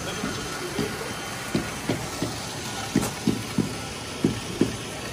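Water from PVC inflow pipes splashing into a fish-farm tank: a steady rush with irregular low gurgling plops, about two a second.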